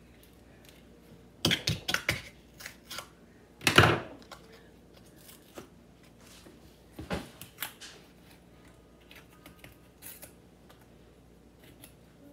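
Clicks, snaps and crackles of a new spice container being worked open by hand: a quick run of clicks, then one louder crackle about four seconds in, and a second run of clicks later on.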